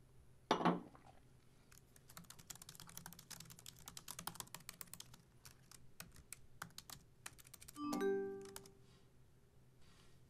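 A wine glass set down on a desk with a single knock, then several seconds of quick typing on a laptop keyboard. Near the end comes a short chiming alert tone that fades out: a new-email notification.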